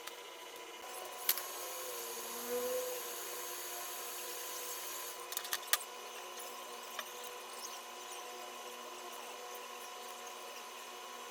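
A steady machine hum made of several even tones over a faint hiss, with a sharp click about a second in and a quick cluster of clicks about five and a half seconds in.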